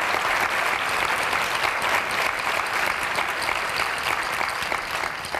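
Audience applauding: many people clapping together, a dense patter that eases off slightly near the end.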